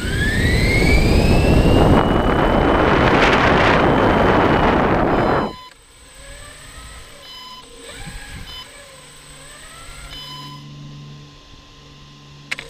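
Electric motor and propeller of a small radio-controlled aircraft spinning up with a rising whine under a loud rush of air, running at full throttle, then cutting off suddenly about five and a half seconds in. Afterwards only a much quieter low hum and faint wavering whine remain.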